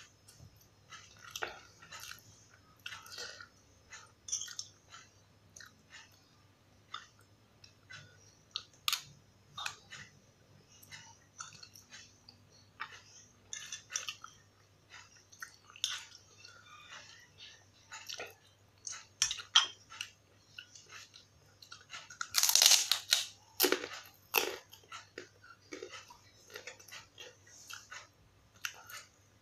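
Close-up eating sounds: a mouth chewing and crunching, with many short crisp crunches. About 22 seconds in there is a loud crunchy bite into a kerupuk cracker, followed by a few more hard crunches.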